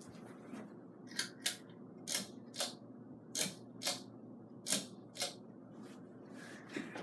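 Hunter Claymore ceiling fan starting up on low speed, with a low hum. Over the hum come sharp clicks in pairs, a pair a little more than once a second, beginning about a second in.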